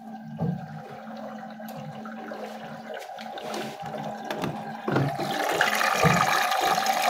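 Washing machine filling with water at the start of its wash cycle: water rushing in with a steady hum, growing louder.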